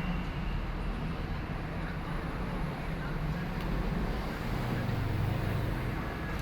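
Steady low rumble and hiss of background noise, with a shifting low drone and a few faint ticks.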